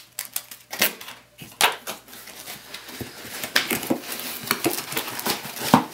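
Cardboard box and plastic packaging handled: crinkling with a run of small clicks and taps, and a sharper knock near the end.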